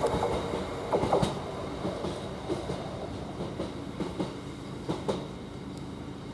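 Freight train wagons rolling past: steady rumble with irregular knocks and clatter of wheels over rail joints, a few sharp knocks about a second in and again around five seconds, then easing off near the end as the train draws away.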